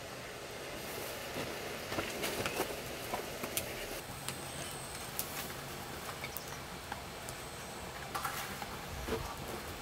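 Steady faint outdoor hiss with scattered light clicks and taps of things being handled, a cluster about one to four seconds in and a few more near the end.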